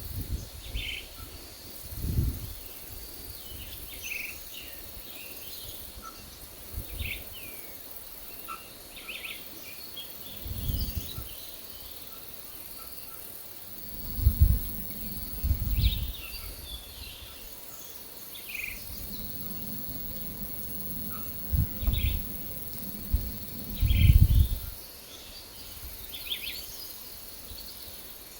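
Birds chirping in short, scattered calls over a steady high-pitched insect drone. Several low rumbles come and go, the loudest things here.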